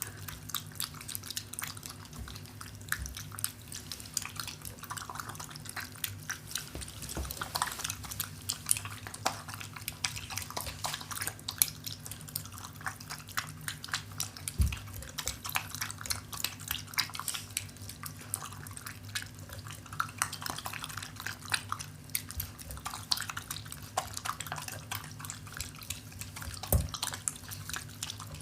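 A Shiba Inu eating from its bowl: quick, continuous wet smacking and chewing clicks, with a couple of louder knocks against the bowl, over a steady low hum.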